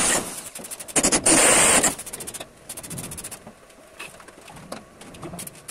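Power drill running in short bursts: it stops just after the start, then runs twice more around one to two seconds in. Afterwards only light metal knocks and rattles from handling the steel folding-door panels.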